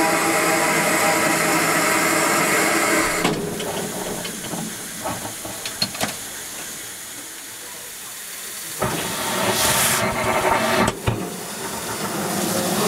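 Steam hissing from a standing steam locomotive around its cylinders and running gear. The steady hiss drops to a quieter one about three seconds in, with a few light clicks, then swells again about nine seconds in, with a brief sharp burst of hiss and a short drop before it settles loud and steady near the end.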